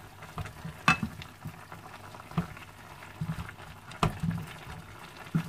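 Wooden spatula stirring chunks of cauliflower, carrot and chicken in a frying pan of simmering stock, scraping and knocking against the pan, with sharp knocks about a second in, at about four seconds and again near the end. A soft steady bubbling and sizzling from the pan runs underneath.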